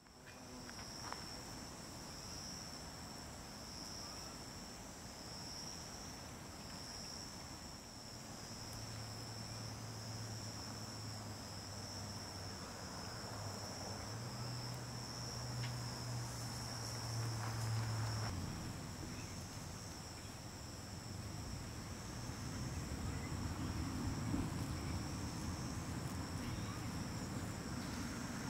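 Insects in the meadow chirring in a steady high chorus that pulses gently. A low steady hum joins from about eight to eighteen seconds in.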